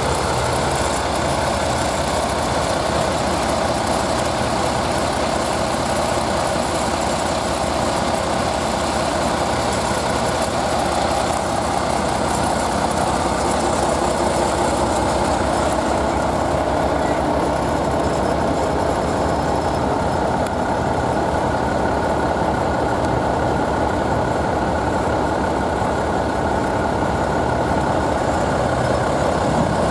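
A heavy engine idling steadily.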